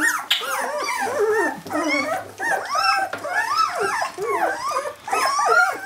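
A litter of jämthund (Swedish elkhound) puppies whining together, many high calls rising and falling and overlapping one another without a break.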